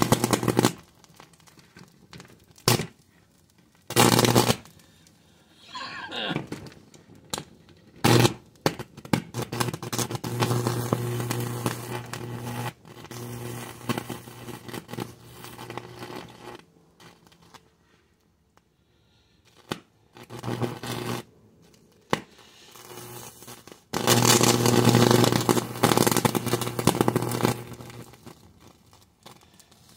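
Flames burning a circuit board: loud bursts of rushing flame noise, some lasting a few seconds, with quieter crackling between them.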